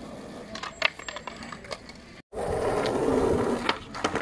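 Skateboard on concrete: sharp clacks of the board and trucks about a second in, then the wheels rolling, ending in more clacks near the end. The sound cuts out for a moment just past halfway.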